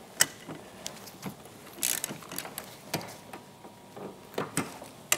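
Scattered metallic clicks and knocks as a snowmobile handlebar is shifted in the clamp of an extruded aluminum adjustable riser, with a short scrape about two seconds in.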